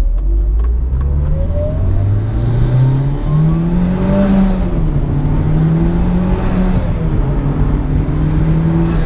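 Mitsubishi Lancer Evolution VIII's turbocharged four-cylinder engine pulling under acceleration, its pitch climbing over the first few seconds, dipping briefly, then holding steady.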